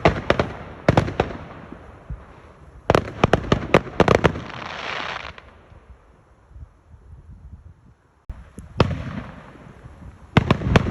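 Fireworks going off in quick clusters of sharp bangs and crackles. A crackling hiss trails away after the second cluster, then comes a lull and a fresh run of bangs near the end.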